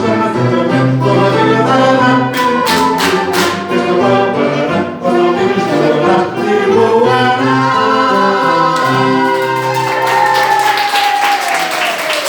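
Live dance-band music with singing. Near the end a long held note slides slowly down in pitch as the song winds down.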